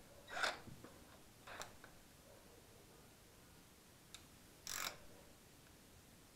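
Quiet handling noises of a hand tool being picked up and moved around an engine bay: three brief scrapes and a single sharp click, with no drill motor running.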